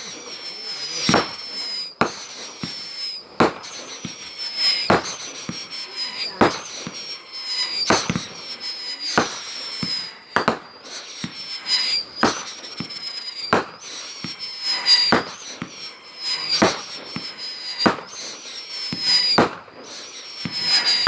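Fireworks firing in a steady sequence: a sharp bang about once a second, each with a high whistle that falls slightly in pitch, and smaller crackles between the shots.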